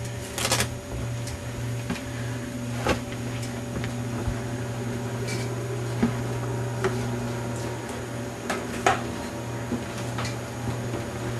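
A steady low hum, with a few light clicks and knocks scattered through it, like things being handled in a small room.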